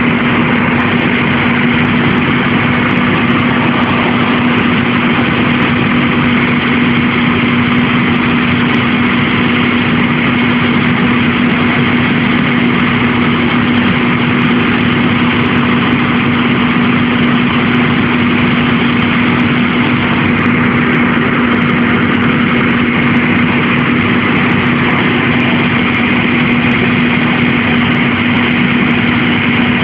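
Fire ladder truck's diesel engine running steadily with a constant hum, driving the aerial ladder's hydraulics while the ladder is raised.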